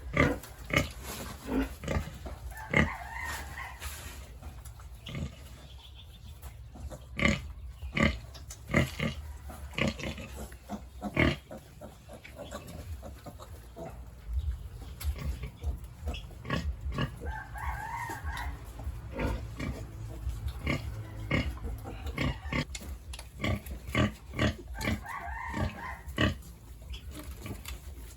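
Pigs in a pen calling, with short squeal-like cries about three seconds in, around eighteen seconds and again around twenty-five seconds, amid frequent sharp knocks and clatters. A steady low hum runs underneath.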